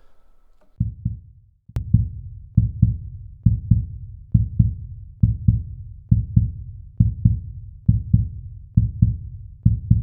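Heartbeat sound effect: low double thumps, lub-dub, starting about a second in and repeating a little faster than once a second.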